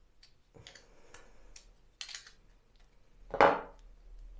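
Flat screwdriver scraping and prying inside a steel socket to work loose melted plastic that has stuck to it, with small metallic clicks, then one louder clunk near the end.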